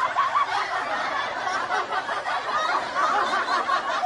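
Many voices laughing and chattering together in a steady mass, like a crowd laugh track.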